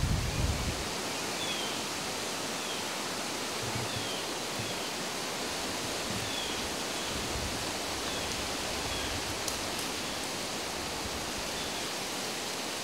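Steady, even rushing hiss of woodland outdoor ambience, with faint short high chirps repeating about once a second through the first two-thirds.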